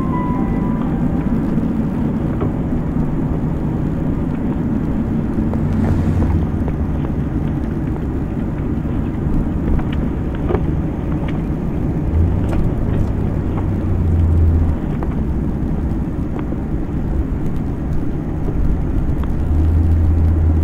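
Steady vehicle engine and cabin noise from a police patrol car, picked up by its dash camera, with a low hum that swells three times. A brief beep sounds right at the start.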